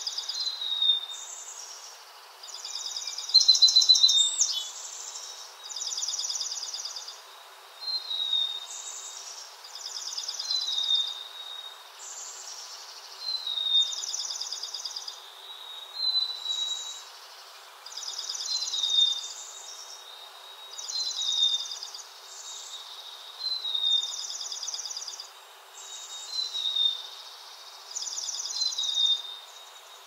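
Songbird song: the same short high phrase, a fast trill with a thin falling note, repeated about every two and a half seconds. One louder sweeping call comes about four seconds in.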